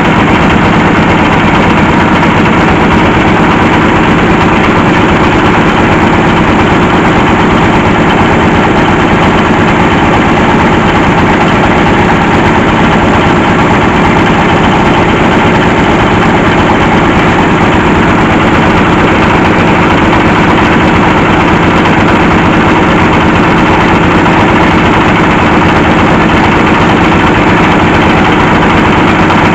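Engine driving a hydraulic well-drilling rig, running steadily and loud, with no change in speed.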